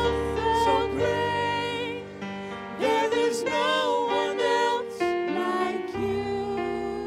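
A woman and a man singing a worship song together into microphones, with instrumental accompaniment underneath.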